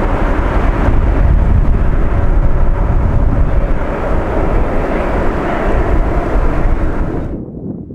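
Airbus A350 jet airliner climbing out at takeoff thrust: a loud, steady, deep rumble of jet engine noise. It cuts off abruptly near the end, leaving a quieter sound.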